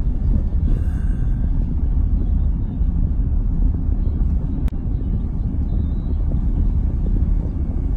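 Car driving, heard from inside the cabin: a steady low rumble of road and engine noise, with one sharp click about halfway through.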